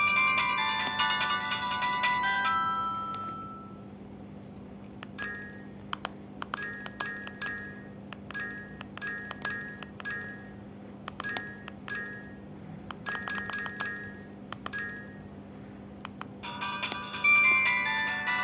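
Built-in ringtones of an LG A271 mobile phone playing one after another. A tune of falling notes ends about three seconds in. A sparse, rhythmic ringtone of short plinking notes with clicks follows, and a denser chiming tune starts near the end. A faint steady hum runs underneath.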